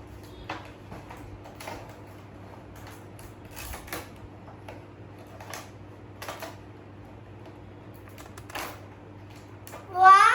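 Toy packaging being handled and opened: scattered short clicks, creaks and rustles over a steady low hum. At the very end a child's voice breaks in with a loud high squeal.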